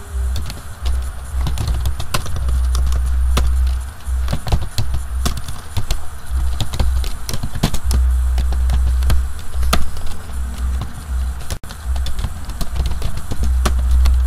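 Computer keyboard keys clicking at an irregular pace during typing, over a loud low hum that comes and goes.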